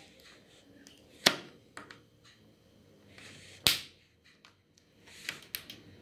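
Scattered sharp clicks and taps from fingers handling a microwave's peeled-back membrane keypad. The loudest click comes about a second in, and a heavier tap comes past halfway, with faint plastic rustle between.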